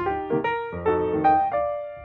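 Intro music played on a piano or electric piano: a quick run of struck notes and chords, each dying away after it is played.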